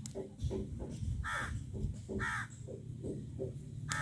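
A crow cawing several times, with the two loudest caws about one and two seconds in, over a low steady background rumble.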